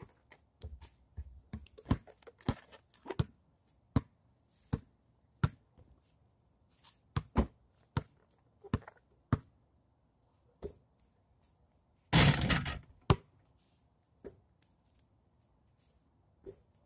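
Basketball bouncing on pavement and striking the hoop: a string of separate thuds at irregular spacing, with one louder, rough crash lasting about a second about twelve seconds in.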